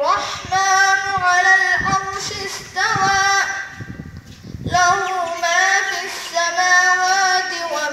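A boy reciting the Quran in Arabic in a melodic tajweed style, drawing out long wavering notes in two phrases with a short pause about halfway through.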